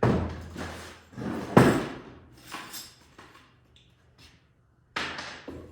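Hammer blows on wooden wall framing, knocking a nailer block into place between studs: four separate hits, the loudest about a second and a half in, the last near the end.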